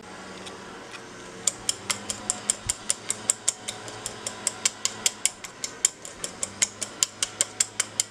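Small wire whisk beating pancake batter in a ceramic bowl, its wires clicking against the bowl's side in a quick, even rhythm of about four or five strokes a second, starting about a second and a half in.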